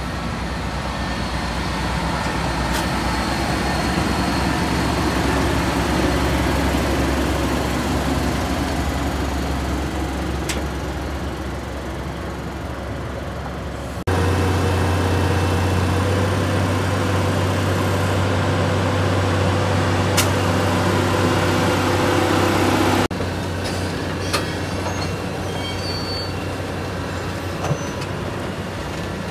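Large diesel engines running steadily, in sections that change abruptly at the cuts. First a MAN heavy-haul truck tractor towing a lowbed trailer, then the engine of the Liebherr 962 tracked excavator standing on the trailer.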